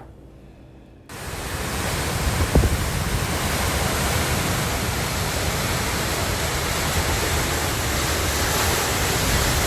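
Steady, loud rush of hurricane wind and rain, starting abruptly about a second in, with a single knock a little later.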